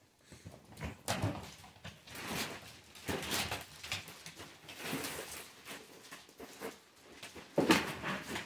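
Two excited dogs scrambling and jumping on a parquet floor, paws scuffling and claws clicking in an irregular patter, with a plastic gift bag rustling; a louder knock sounds near the end.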